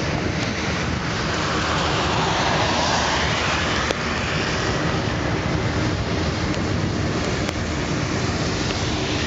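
Boeing 747-400's four jet engines running at high power as it rolls down a wet runway, a steady loud rushing noise that swells a little a couple of seconds in.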